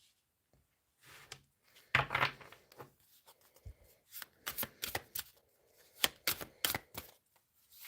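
Tarot cards being shuffled and handled by hand: soft rustling, then a run of short, sharp card snaps, a few a second, through the second half.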